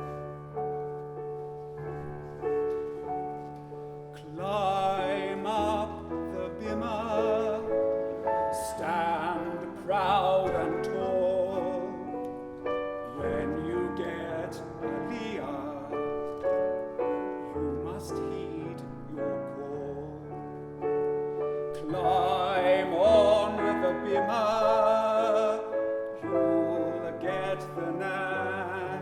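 Music: piano playing sustained chords, with a melody carried in a wavering vibrato above it in an operatic style, swelling louder about four seconds in and again near the end.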